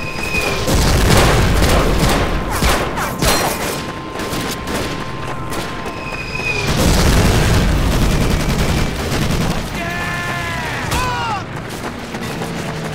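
WWII battle sound effects: rapid rifle and machine-gun fire with heavy explosions rumbling twice, and a man shouting about ten seconds in.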